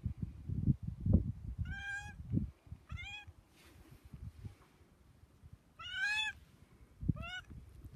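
Long-haired domestic cat meowing four times in short calls that rise in pitch, in two pairs a little over a second apart; the third call is the loudest. Low thumps and rumble sound in the first couple of seconds and again near the end.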